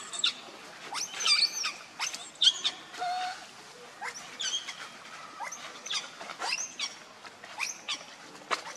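Young pig-tailed macaque squealing: short, high-pitched cries that bend up and down in pitch, about two a second.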